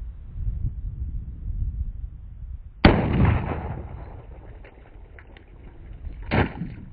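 A single shot from a Ruger LCP II .22 LR pistol firing a CCI Stinger round: one sharp crack about three seconds in, with a short ringing tail. Wind rumbles on the microphone, and a second, quieter thump comes near the end.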